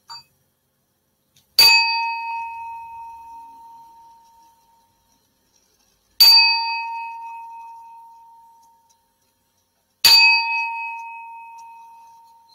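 Small metal singing bowl struck three times with a wooden striker, each strike ringing with a clear bell-like tone that slowly fades over about three seconds. The strikes call the listeners' attention to focus on the bowl's sound before a guided meditation.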